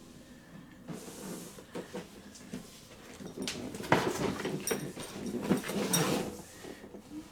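A large cardboard toy box being handled and turned over: scrapes, rubbing and light knocks, busiest from about three and a half to six and a half seconds in.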